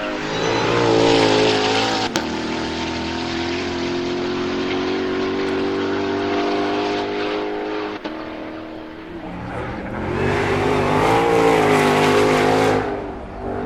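Ford Mustang GTD's supercharged V8 revving hard. The pitch wavers about a second in, holds a steady note for several seconds, dips, then wavers loudly again before falling away near the end.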